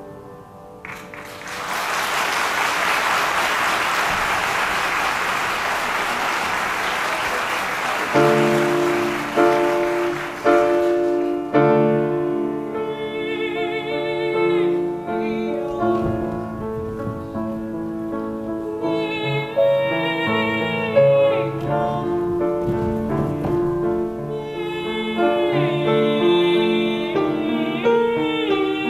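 Audience applause for about ten seconds, then a grand piano starts a new piece and young solo voices sing phrases over it, with vibrato.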